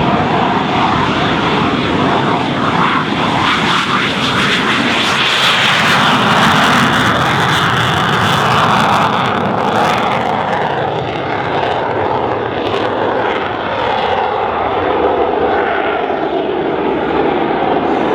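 BAE Systems Hawk 127 jet trainer's Adour turbofan engine, loud throughout and loudest about six seconds in, as the jet flies a display pass. After the loudest point the pitch falls as the jet passes by and moves away.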